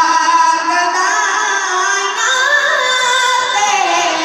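A boy's high singing voice reciting a devotional naat into a microphone, with long held notes that slide up and down in pitch.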